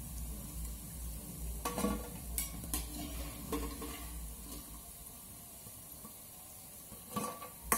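Pakoras sizzling in hot oil in a steel kadhai as they are lifted out with a metal slotted spoon. The spoon clinks and scrapes against the pan and a steel plate a few times, most sharply near the end.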